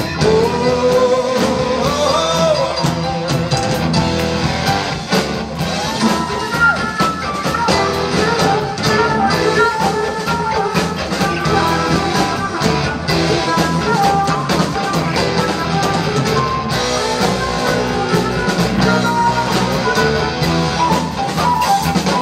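Live rock band playing an instrumental break: a flute carries the melody over electric guitar, bass guitar and drums.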